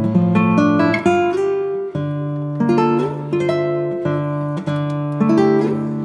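Background music: an acoustic guitar playing plucked and strummed notes.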